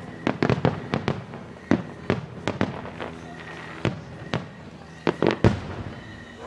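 Aerial firework shells bursting in an irregular string of sharp bangs, some in quick clusters, the loudest a little after five seconds in.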